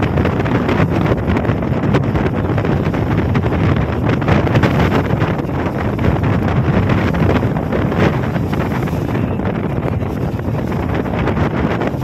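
Strong wind buffeting the microphone on the open deck of a passenger boat, over the steady running of the boat and the rough sea. The wind roar stays loud throughout.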